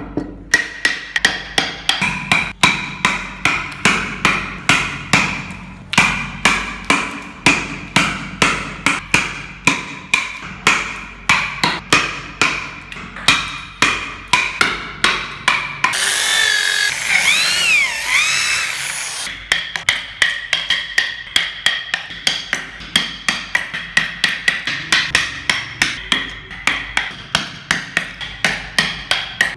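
Hammer blows in woodwork, about two to three a second, each with a short ringing tone. About halfway through, the blows stop for about three seconds of a hissing noise with a wavering whistle, then start again.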